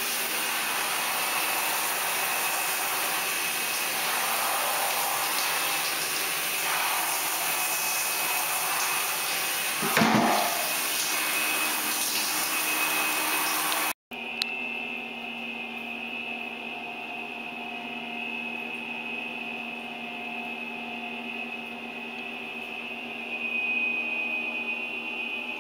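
Steady hiss of water running from a shower or tap into a bathtub, with a brief louder sound about ten seconds in. After a sudden cut a little past halfway, a quieter steady hum with a high whine takes over.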